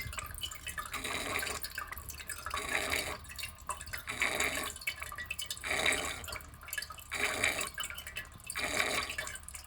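Toilet tank with a Korky 528X fill valve gurgling and dripping after refill, in irregular surges about once a second. The valve keeps leaking water into the overflow tube, a sign of a worn-out fill valve cap and seal.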